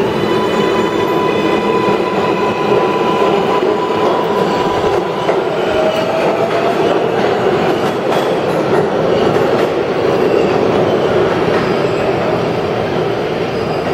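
New York City Subway R188 train departing a station and running away into the tunnel, with a steady rumble from the wheels on the rails. A steady high whine sounds over it for the first four seconds or so, and a short rising tone comes about six seconds in.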